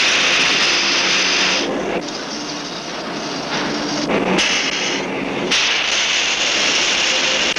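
A semi-automatic metal-cutting machine tool at work: a loud, rough hiss of cutting with a steady machine drone under it. The hiss drops back a little under two seconds in and swells again a few times.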